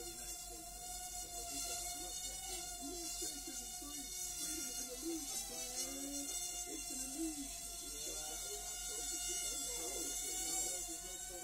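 A micro quadcopter's tiny brushed motors and props buzzing in flight, the pitch wavering up and down as the throttle is constantly corrected.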